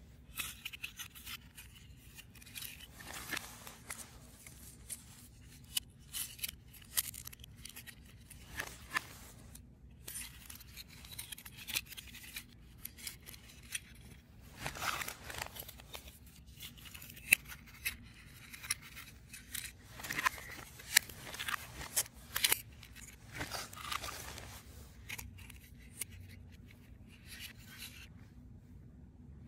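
3D puzzle pieces being handled and fitted together: irregular crisp clicks, snips and short scrapes of stiff paper and board, with a few sharper clicks midway, over a faint steady low hum.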